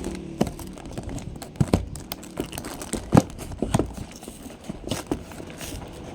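A cardboard Lego set box being opened and handled: scattered clicks, taps and short scrapes, the loudest about three seconds in, with some light crinkling.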